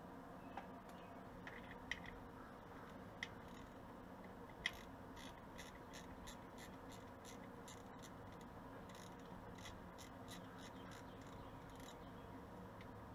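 Faint clicks and light metal taps from a hand wrench on the flexplate bolts, over a low steady hum. A few sharper clicks come in the first five seconds, then a run of light clicks at about three a second.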